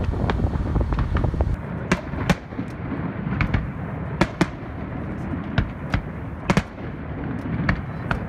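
Fireworks going off: a string of sharp bangs and crackles at irregular intervals, several a second at times, over a low rumble that is heaviest in the first second and a half.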